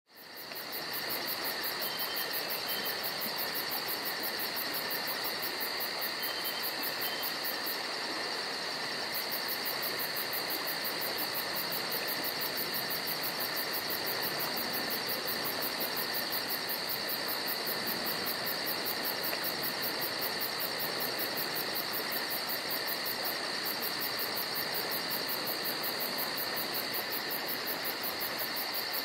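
Evening forest ambience: a steady chorus of crickets and other insects trilling without a break, with a few faint short chirps over it. It fades in at the very start.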